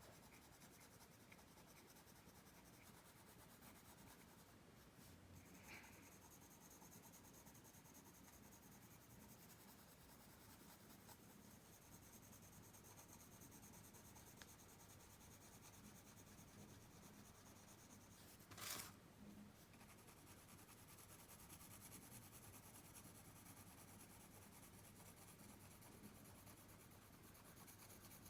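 Faint scratching of a pencil drawing on paper, a steady light rasp of shading strokes. About eighteen seconds in comes one brief, louder scratch, the loudest sound here.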